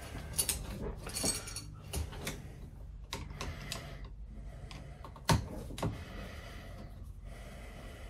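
Light clicks and rattles of a three-way light switch and its wires being handled at the wall box, with two sharper clicks about five and a half seconds in.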